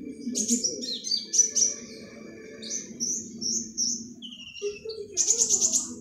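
Caged sunbird (kolibri ninja) singing: a quick run of high, thin chirps and twitters, ending in a fast buzzy trill near the end.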